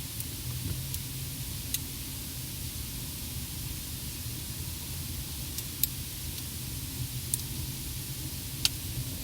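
Scattered sharp clicks and crackles inside a car cabin, about seven of them and uneven in timing, the loudest two a little past the middle and near the end, over a steady low hum and hiss.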